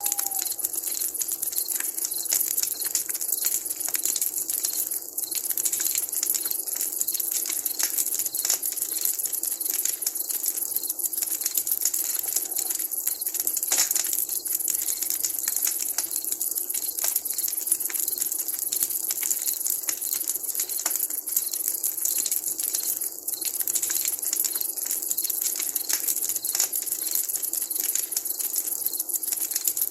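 Wood campfire crackling steadily, with many small snaps and pops over a constant hiss.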